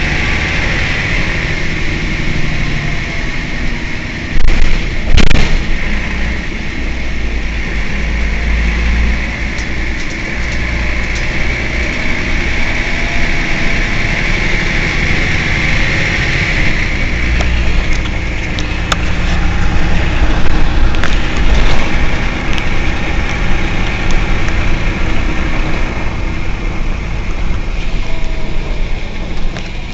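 Mercedes-Benz O 405 N city bus idling at a stop. A steady high whine sits over the engine and fades a little past halfway through. Two loud knocks come about five seconds in.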